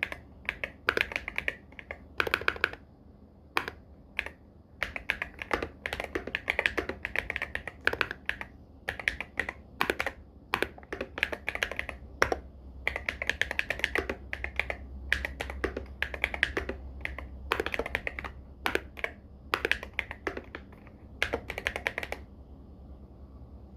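Typing on an Irok MG75 Pro mechanical keyboard with Silver Purple Star switches and Loga x Wongnai keycaps: rapid keystroke clacks in bursts with short pauses, stopping about 22 seconds in.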